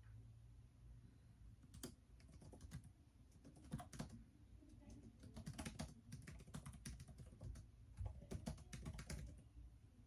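Quiet typing on a laptop keyboard: key clicks in uneven bursts with short pauses between, picking up about two seconds in.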